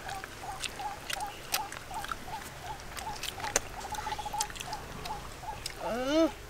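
A steady string of short chirps from a small animal calling, about three a second, with scattered soft clicks and smacks of people eating with their hands. Near the end comes a brief, louder call that rises and falls in pitch.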